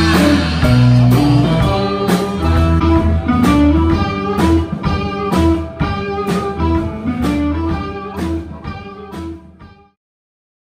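Instrumental background music with plucked notes over a steady bass line, fading out and stopping shortly before the end.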